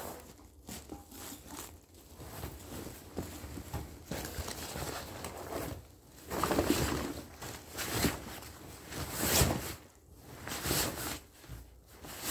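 Nylon sleeping bag rustling and swishing in irregular bursts as it is bundled up and stuffed for packing, loudest about halfway through and again near the end.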